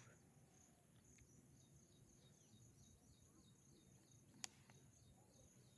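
Near silence between spoken phrases: faint background hiss with faint, high, evenly repeating chirps, and one sharp click about four and a half seconds in.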